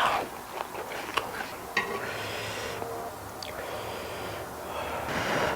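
A person chewing a mouthful of food with small mouth clicks, breathing out loudly through the nose three times, about two and a half seconds apart.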